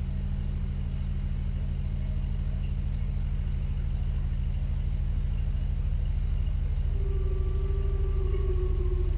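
Horror ambience drone: a deep, steady, low rumble with a fine rapid pulse. About seven seconds in, a fainter wavering tone enters higher up and sags slightly in pitch.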